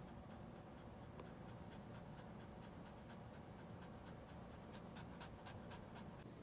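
Toy poodle in labour panting rapidly and faintly, about four breaths a second, growing stronger near the end: the ragged breathing of a dog in labour.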